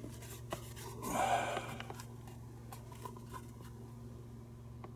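Small handling noises at a workbench: scattered light clicks and a brief scratchy rustle about a second in, over a steady low electrical hum.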